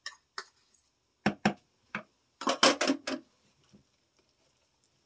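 Sharp taps and knocks of a plastic measuring cup and a wooden spoon against a plastic mixing bowl, as a thick dressing is knocked and scraped out of the cup. They come singly about a second apart, with a quick run of louder taps about two and a half seconds in, then stop.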